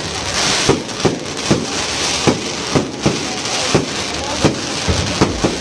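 Fireworks going off in rapid succession, sharp bangs about twice a second over a continuous crackle.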